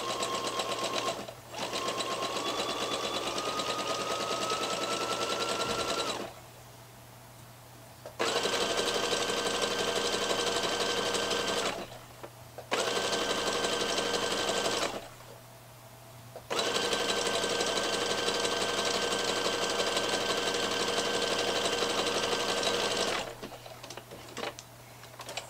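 Domestic electric sewing machine stitching a side seam in striped cotton jersey, running in five stretches of a few seconds with short stops between as the fabric is guided. During the second stretch the machine speeds up and its pitch climbs; a few light clicks follow after it stops near the end.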